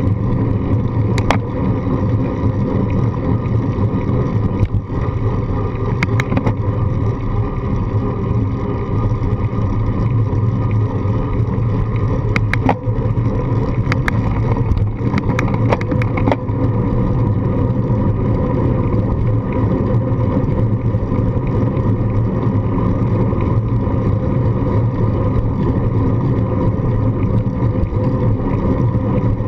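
Steady low rumble of wind buffeting a handlebar-mounted GoPro on a moving bicycle, mixed with tyre noise on a paved path. A handful of sharp clicks or rattles come in the first half.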